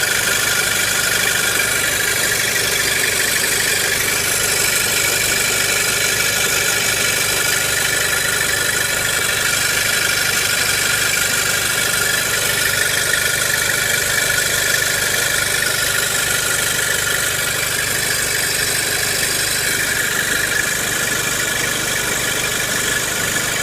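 Audi A4 1.8T's turbocharged four-cylinder engine idling steadily, with steady high tones running over the engine sound. This is the noise the owner hears only with the automatic in R or D, not in P or N; the mechanic put it down to a loose hose.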